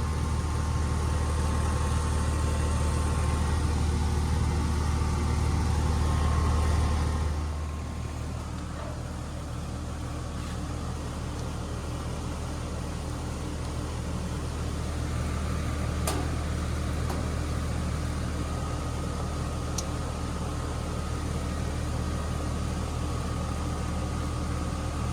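Low, steady hum from an air-conditioning condenser unit that is not starting, which fits its failed capacitor. The hum cuts off suddenly about seven seconds in, leaving a quieter steady background with one sharp click later on.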